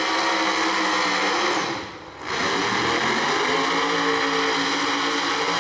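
No-prep drag car engine held at high revs through a burnout, tyre smoke pouring off the rear wheels. The sound drops away briefly about two seconds in, then the engine runs hard and steady again.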